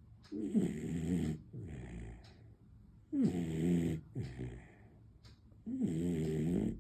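Beagle puppy snoring in its sleep: three snores about two and a half seconds apart, each a pitched, buzzing snore of about a second followed by a softer, shorter breath.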